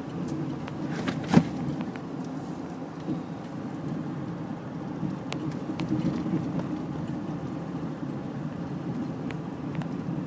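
Steady low rumble of a truck's engine and tyres heard from inside the cab while driving on a snowy street, with one sharp click about a second and a half in and a few faint ticks.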